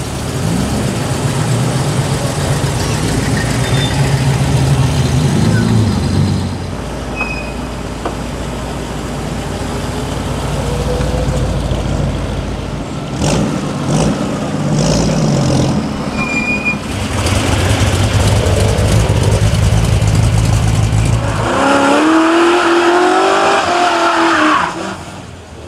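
V8 muscle cars driving past one after another, engines running and revving. Near the end a Plymouth Duster does a burnout: its engine is held at high revs and its rear tyres spin and screech, then the sound drops away abruptly.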